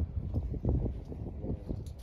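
Uneven low wind rumble on the microphone, with irregular soft knocks and clicks.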